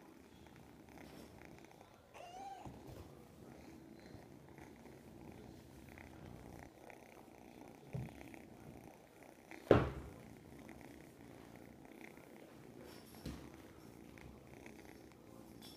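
Young orange tabby kitten purring steadily close to the microphone while being stroked, with a brief mew about two and a half seconds in. A sharp knock near the middle is the loudest sound, with two lighter knocks around it.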